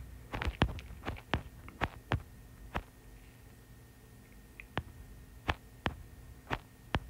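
A string of sharp, light clicks and taps, about fourteen at uneven spacing with a pause near the middle, from handling the device he is reading from. Under them runs a faint steady hum.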